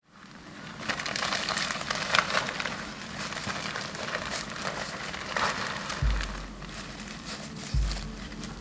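A camouflage plastic tarp being pulled and folded, crinkling and rustling with many small crackles, and dry leaf litter crunching underfoot. Two low thumps come about six and eight seconds in.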